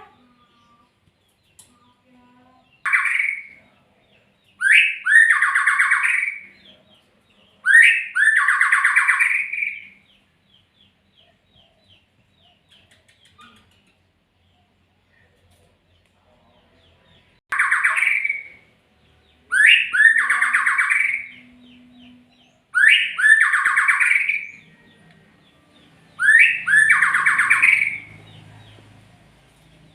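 Murai (Copsychus magpie-robin) giving seven harsh calls in two groups, each starting with a short rising note and running on as a buzzy stretch of one to two seconds, with faint twittering in the gap between the groups.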